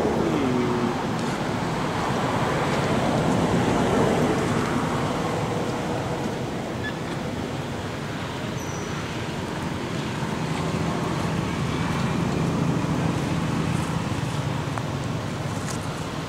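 Steady outdoor background din, a continuous rushing noise like distant road traffic, with no clear monkey calls.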